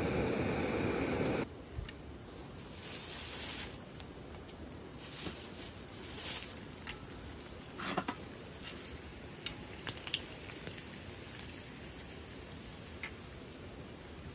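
Dried filefish (jwipo) frying in oil on a griddle pan: light sizzling in spurts, with sharp clicks of metal tongs turning the pieces. A louder steady rush cuts off abruptly about a second and a half in.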